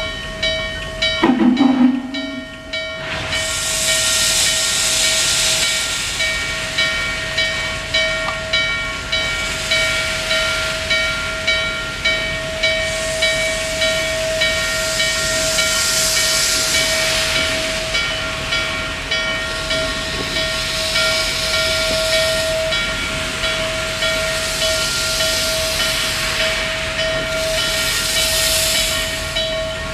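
Norfolk & Western Class J 611 steam locomotive standing with steam hissing and a steady beat of just under two pulses a second, over a steady high whine. A short, loud low tone sounds about a second in.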